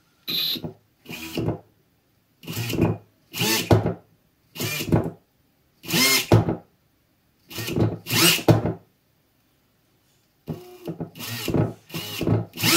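The DeWalt DCD996 hammer drill's brushless motor, run with no gearbox and no load, given about ten short blips of the trigger. Each burst spins up for about half a second and is stopped quickly by the electronic brake.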